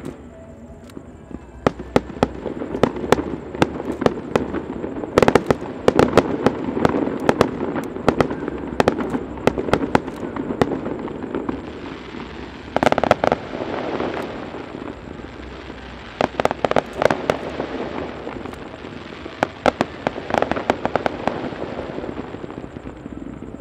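Fireworks show: a dense run of sharp shell bursts and bangs, loudest in the first half, then clusters of rapid crackling bursts about halfway through and twice more near the end, over a steady low rumble.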